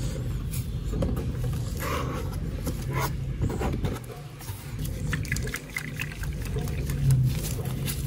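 Fingers rubbing and pressing masking tape down onto a textured plastic scooter panel, with short scraping rustles, over a steady low hum.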